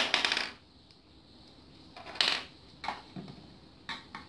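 Plastic pieces of a Play-Doh Ice Cream Sundae Cart toy set being handled: a short rattle at the start, then a few light clicks and knocks.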